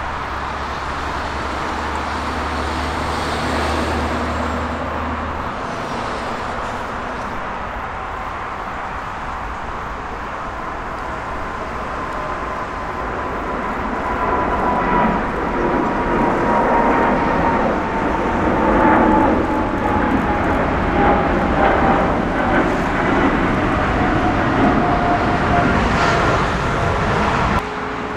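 Air Canada Boeing 777-300's twin GE90 turbofans at takeoff power as the jet departs, a loud steady jet noise with a fan whine that slowly falls in pitch as it passes. It is loudest about two-thirds of the way through and cuts off suddenly near the end.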